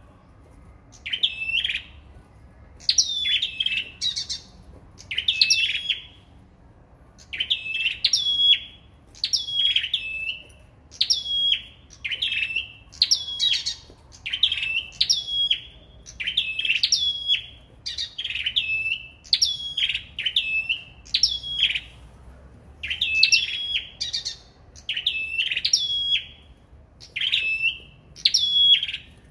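Caged songbirds of the kind Vietnamese keepers call sâu đầu đỏ singing against each other: a short, high, sweeping chirped phrase repeated about once a second.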